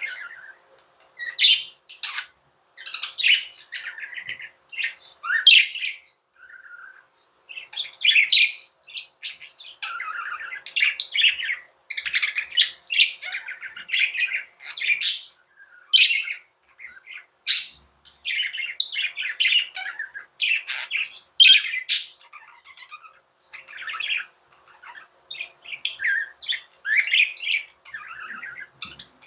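Budgerigars chirping and warbling in a busy, near-continuous chatter of short, high chirps with brief pauses.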